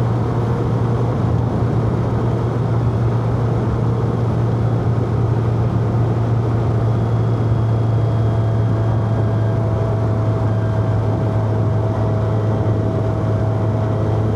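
Four-cylinder car engine pulling at a steady speed, its low hum holding one pitch, over a constant bed of road and wind noise.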